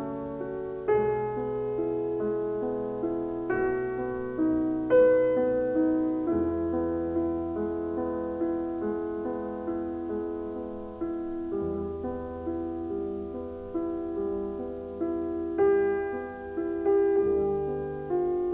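Background piano music: a slow run of held notes, each new note struck every second or so over low sustained bass notes.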